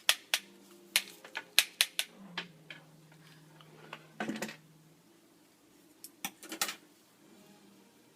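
Sharp clicks and clacks of a flat iron and hair tools being handled: a rapid run of clicks in the first three seconds, a brief scraping rustle about four seconds in, and another cluster of clicks near seven seconds.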